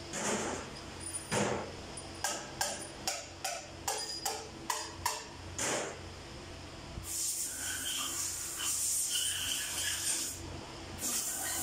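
Sharp metallic knocks and clanks of hand tools and engine parts being handled during engine assembly, about ten in the first six seconds. After that comes a few seconds of rough hissing or scraping noise.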